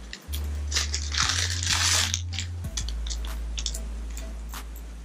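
Gloved hands working a metal band clamp around a rubber CV boot on a driveshaft. There is rustling and crinkling of rubber and nitrile glove, with scattered light clicks of the metal band. The rustle is loudest about a second in.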